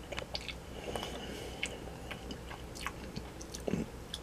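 A person chewing soft, very chewy black licorice candy close to the microphone: faint wet smacks and small clicks of a mouth working at candy that sticks to the teeth.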